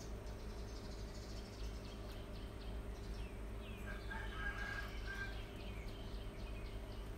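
Rabbits nibbling leafy greens and carrot, faint crunching ticks, over a steady low hum. About four seconds in, a short pitched animal call from something off-screen.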